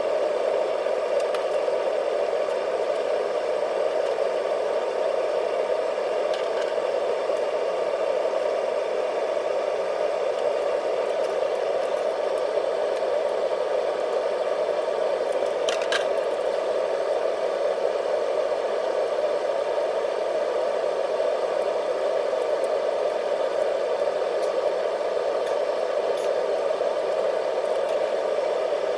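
Air-conditioning unit running behind a door: a loud, steady rushing noise that holds at one level throughout, with a single sharp click about halfway through.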